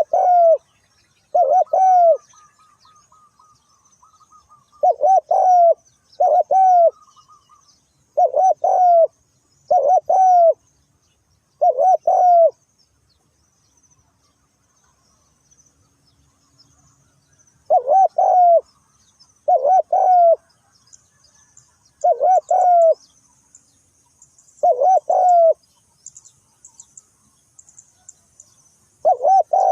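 Spotted dove cooing: about a dozen short, repeated coo phrases, with a pause of about five seconds in the middle. Faint high chirping of small birds runs underneath and grows busier near the end.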